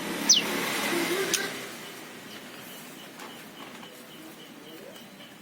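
Bird calls: a single sharp downward whistle just after the start, then faint, evenly repeated short chirps about three a second, over a low hum of background noise that fades after a second or so.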